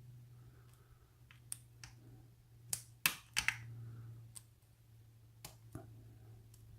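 Sharp metallic clicks of a pick and tension wrench working the spool pins of a challenge lock, about eight in all, the loudest a pair about three seconds in. The lock is held in a false set while the pins are worked, over a faint steady low hum.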